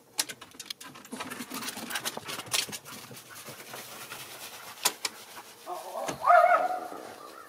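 Schipperke dog giving one drawn-out bark or yelp about six seconds in, after a run of crisp crackling clicks.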